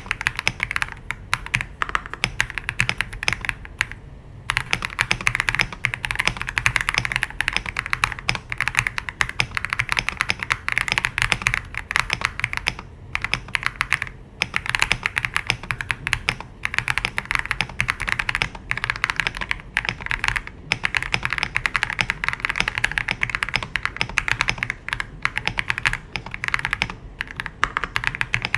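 Rapid, continuous typing on an FL-Esport OG98 mechanical keyboard with its stock switches: a dense clatter of key clicks, broken by a few brief pauses.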